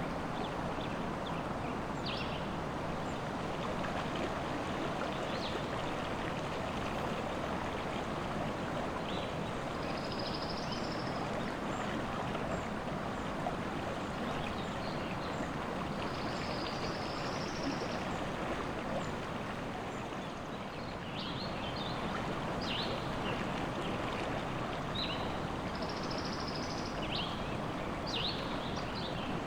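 Steady rush of river water, with birds chirping now and then above it, more often near the end.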